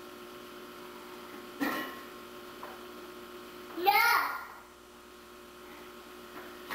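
Steady electrical hum, with a young child's brief high-pitched vocalization about four seconds in and a shorter, fainter vocal sound a little before two seconds.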